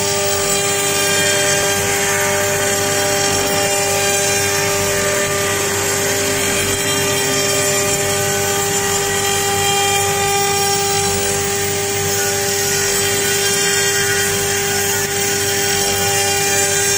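CNC router spindle running steadily with an even whine while its end mill cuts polystyrene foam, over a constant hiss of the cut.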